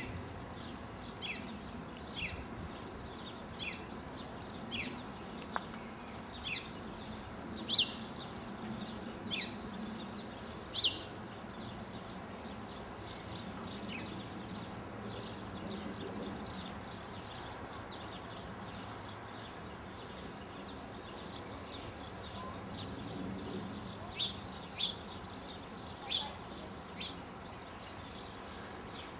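Birds calling: short, sharp chirps that each drop quickly in pitch, coming about once a second for the first ten seconds and again in a cluster near the end, over a low steady background rumble.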